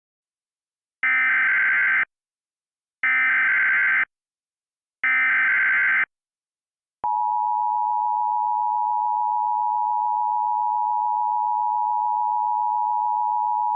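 Emergency Alert System SAME header: three one-second bursts of warbling digital data tones, a second apart, then the steady EAS attention tone starting about seven seconds in and holding. The tones signal that an alert, here a tornado warning, is about to be read.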